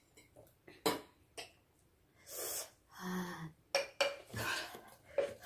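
Forks clinking and scraping on plates of noodles, with several sharp clinks of tableware on a table, the loudest about a second in. A breathy puff and a short hummed vocal sound fall in between.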